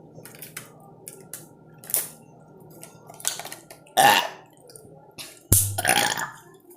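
A child burping after gulping water: two loud, drawn-out burps about four and five and a half seconds in, after a few faint clicks.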